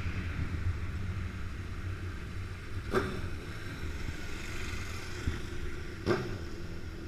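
Motorcycle engine running steadily with a low rumble, with two sharp clicks about three and six seconds in.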